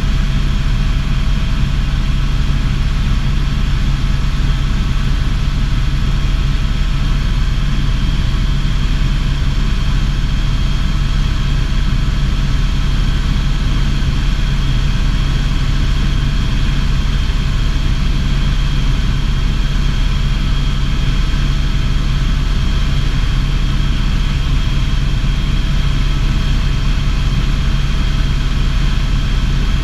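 Helicopter in flight: a steady, loud drone of engine and rotor noise with a few constant tones, including a high whine, holding unchanged throughout.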